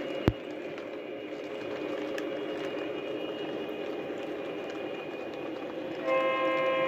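Lionel O scale freight cars rolling along three-rail track with a steady rumble, and one sharp click just after the start. About six seconds in, the model locomotive's electronic sound system starts a held horn chord, louder than the rolling.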